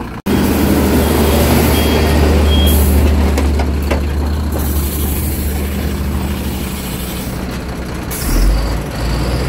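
Heavy cargo truck's diesel engine running close by: a loud, steady low drone that starts abruptly just after the opening. Bursts of high hiss come over it in the first few seconds and again near the end.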